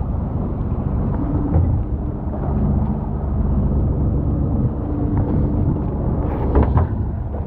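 Fishing boat's engine running, a low steady rumble, with a faint steady hum coming and going over it.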